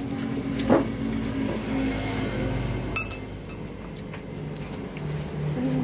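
A motor vehicle engine running steadily, with two sharp clinks, about a second in and again at three seconds, of a metal spoon against a ceramic bowl.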